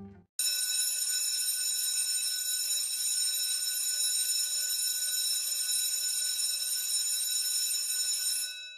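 Electric school bell ringing continuously, starting suddenly and holding steady for about eight seconds before it stops near the end, its ring dying away briefly. It is the bell that marks the end of the school year.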